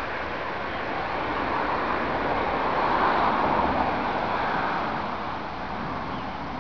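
A road vehicle passing by, its tyre and engine noise swelling to a peak about three seconds in and then fading away.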